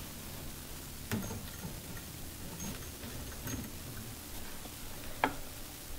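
Light clicks and handling taps as a spiral compact fluorescent bulb is handled and fitted into a table lamp's socket, with a sharper click about five seconds in, over a steady low room noise.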